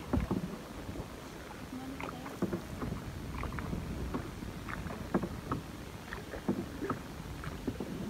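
A small river boat (perahu ketek) crossing a river. There is a low, even wash of water and wind, with scattered light knocks and splashes.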